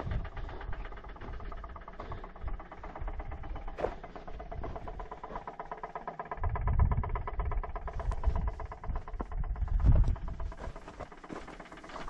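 Case TV450-series compact track loader, shut off, making a rapid, even knocking that the owner takes for hydraulic fluid flowing back to the other side. A sharp click about four seconds in, and low rumbles around two-thirds of the way through and again near the end.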